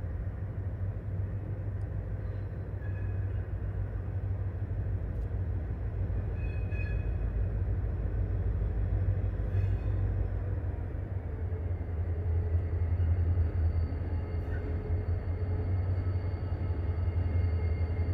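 Diesel-electric freight locomotives approaching slowly, their engines giving a steady low rumble that grows somewhat louder as they near. A faint high-pitched whine joins in about two-thirds of the way through.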